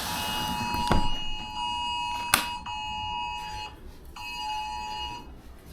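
Electronic alert tone: one long steady beep of about three and a half seconds, then after a short gap a second beep of about a second, with two sharp clicks during the first beep.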